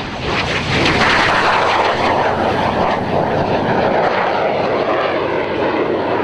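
Cessna A-37 Dragonfly's twin General Electric J85 turbojets in flight, a loud jet roar that swells about a second in and then holds steady.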